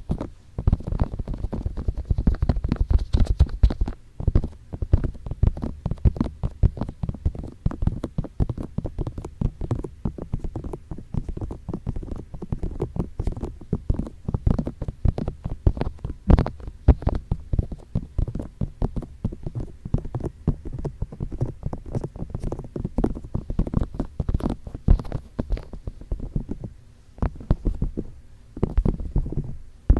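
Fingertips tapping and rubbing on microphone ears for ASMR ear tapping and touching: rapid, irregular, muffled taps and rustles that fade briefly a few times.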